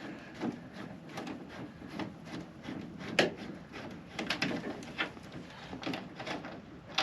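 Two small screws being taken out of a pickup's plastic factory rock shield in the rear wheel well by hand: irregular light clicks, taps and rubbing of the tool and plastic, with a sharper click about three seconds in.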